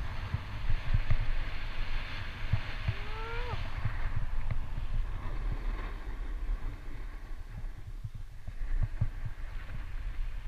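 Wind buffeting the microphone of a camera on a moving skier, with the hiss of skis sliding over groomed snow, stronger in the first few seconds. A short rising tone sounds about three seconds in.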